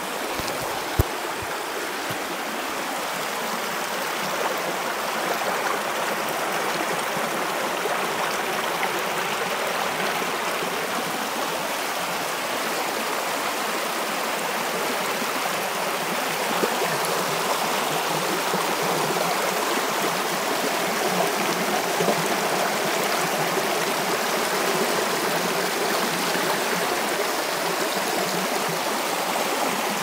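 Shallow, rocky creek rushing and splashing over rock ledges in small rapids: a steady, unbroken sound of running water.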